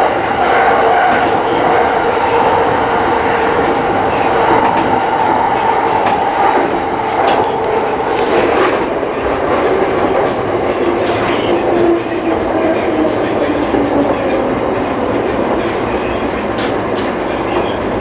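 Yamanote Line electric commuter train rolling into a station, the whine of its motors slowly falling in pitch as it brakes, over steady wheel-on-rail rumble. A thin high steady tone joins in about twelve seconds in.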